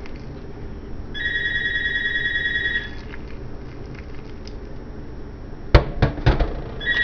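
An electronic ringer trilling, a rapidly pulsing two-tone burst lasting about a second and a half, which starts again near the end. A few sharp knocks come about six seconds in.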